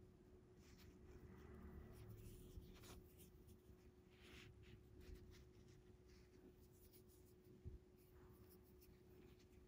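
Very faint rustling and rubbing of fingers handling fishing line as a knot is tied, over a steady faint hum, with one soft bump about eight seconds in.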